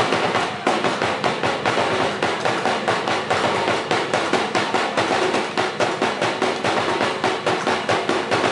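Percussion accompaniment for a Sinulog street dance: a steady beat of sharp knocks, about three a second.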